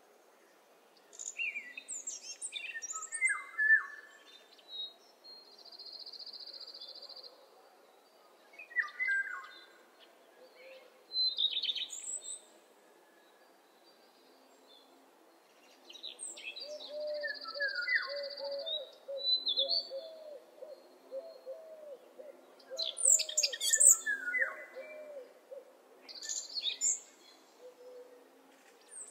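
Several birds singing and chirping in bursts with short pauses, including a buzzy trill held for about a second twice, and a run of low repeated notes through the second half.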